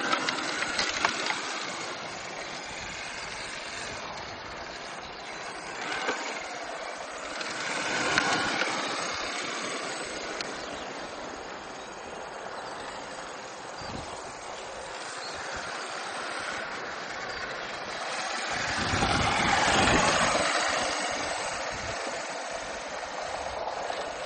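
Electric drive of a 1:5 scale RC Fennek armoured car running as it drives over ploughed soil: motor and gear whine mixed with tyre noise. It grows louder twice, about eight and twenty seconds in.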